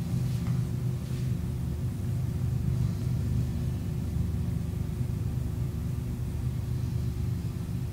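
Steady low hum of a running desktop computer, with a faint steady tone above it.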